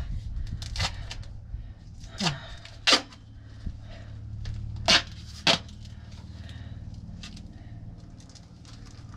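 A handful of sharp, separate clicks and knocks from hands working at wiring under a motorhome, heard over a steady low hum.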